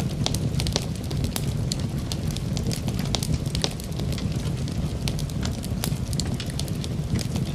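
Food cooking in a pot: frequent sharp crackles and pops of sizzling over a steady low rumble.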